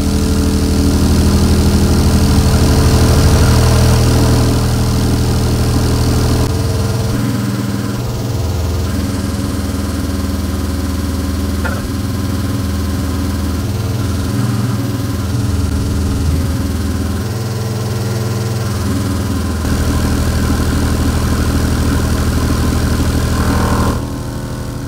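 Rockville K9 V3 12-inch subwoofer playing a low bass test tone of about 40 Hz at around 1,000 watts RMS, a loud continuous drone. Its tone shifts a couple of times and it drops a little near the end. The sub is being held at its rated RMS power and its voice coil is overheating.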